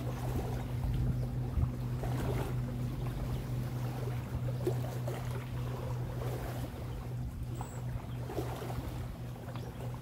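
A motorboat engine's steady hum over wind and small waves washing on the shore.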